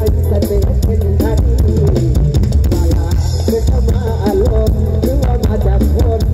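Live Thai mor lam band music played loud through a stage PA, with heavy bass and a drum kit keeping a steady beat under a melody line.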